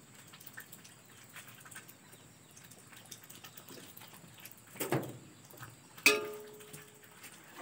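Used cooking oil poured slowly from a metal pot into an aluminium wok, faint. A light knock comes about five seconds in, and a sharper knock with a short ringing tone about six seconds in.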